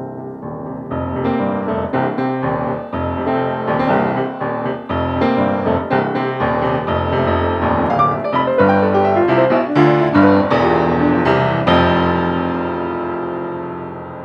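Piano music that starts abruptly, with many notes struck in quick succession, then settles into held notes that fade near the end.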